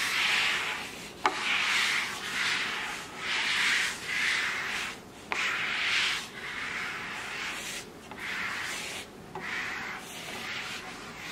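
Hand applicator rubbing penetrating epoxy into a bare sinker cypress slab: repeated scraping strokes, about one a second, with sharp clicks about a second in and again about five seconds in.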